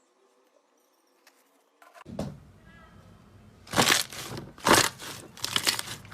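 Slime being squeezed and pressed by hand: after about two seconds of near silence come a few faint sounds, then several loud, noisy squishes, the strongest about four and five seconds in.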